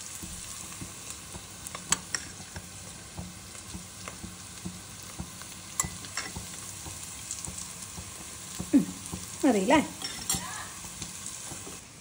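Chopped onions frying in oil in a kadai, a steady sizzle, with a few sharp clinks of a spoon against a plate.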